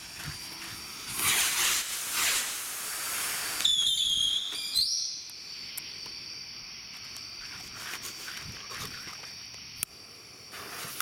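Megabanger Wild Geese stick rockets launching with two hissing whooshes, then a high whistle gliding in pitch for about a second. After that, a faint steady high chirring of insects, a sharp click near the end, and hissing as the next pair's fuses are lit.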